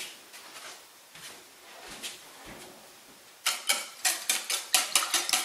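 A few faint light clinks, then about three and a half seconds in, rapid clattering of a custard batter of eggs, evaporated milk and water being whisked in a bowl, about five strokes a second.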